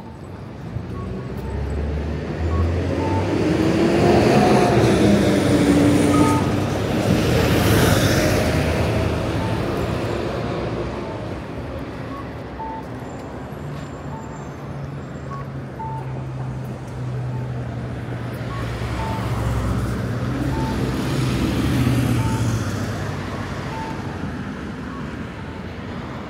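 City street traffic: vehicles pass close twice, swelling and fading, and an engine hums steadily in between. A short beep repeats about every second and a half throughout.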